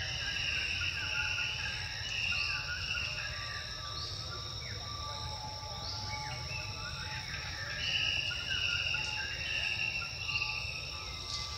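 Insects chirring in several steady high tones, with a short call repeated about every second and a half, each sliding in pitch before a held note.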